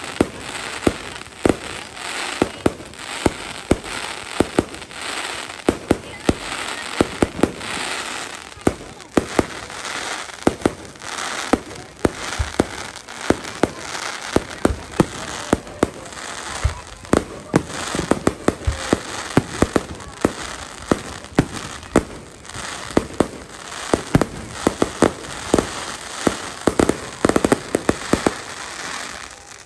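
Aerial fireworks display: shells bursting in quick succession, a dense run of sharp bangs with crackling between them.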